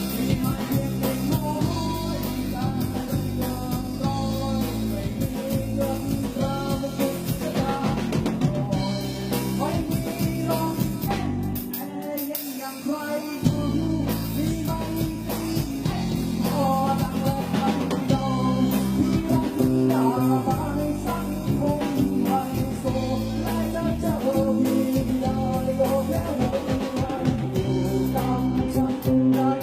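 A live band playing a Thai song with drum kit, bass and guitar, and a singer's voice over it. The low bass drops out for about a second a little after twelve seconds, then comes back in.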